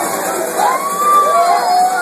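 A crowd of bar patrons cheering and yelling in celebration, with long drawn-out shouts rising and falling over the din from about half a second in.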